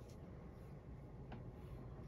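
Quiet room tone with a low steady hum and a single faint small click a little past halfway.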